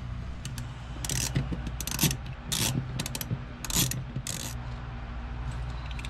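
A long fuse-block mounting screw being backed out with a hand tool, making about six short rasping clicks spread over a few seconds.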